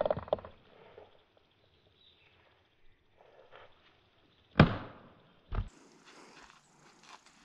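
Thrown Schrade Frontier SCHF37 survival knife striking a tree trunk with one sharp thud about four and a half seconds in, followed about a second later by a shorter knock.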